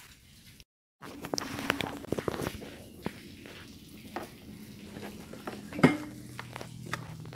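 Irregular light clicks, knocks and rattles, one sharper knock near the end, over a faint low hum, after a brief dropout to silence about a second in.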